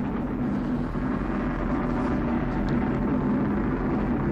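Atlas V rocket's RD-180 first-stage engine during ascent, a steady rumbling roar with no change in pitch or level.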